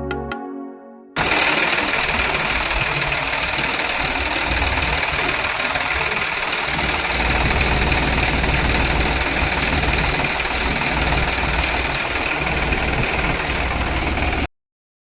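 A small motor running steadily with a rough, rattly noise. It starts suddenly about a second in and cuts off abruptly near the end.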